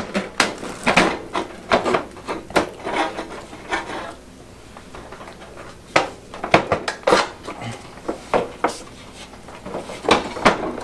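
Plastic diffuser lens of a fluorescent light fixture being fitted into its metal housing: irregular clicks, knocks and scraping rubs as the panel is flexed and pressed into place.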